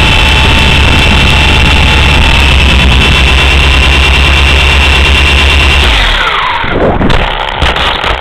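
Small electric motors and rotors of a Swann Sky Eye remote-control helicopter whining steadily at speed, very loud. About six seconds in the whine falls in pitch as the rotors spin down, followed by a few sharp knocks near the end.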